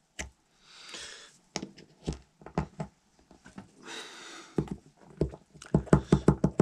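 Light taps and clicks of a hand tool on a brass shotgun shell as the overshot card is seated snugly on the shot. The taps are scattered at first, with two soft breathy hisses between them, then come quickly, about four a second, for the last two seconds.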